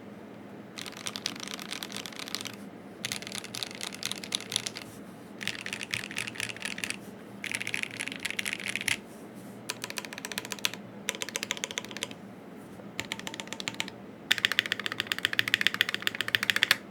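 Typing on a Keychron Q1 aluminium-plate mechanical keyboard with Gateron Cap Yellow V2 linear switches and GMK keycaps, in short runs of quick keystrokes with brief pauses between. The last run, near the end, is longer, denser and louder than the rest.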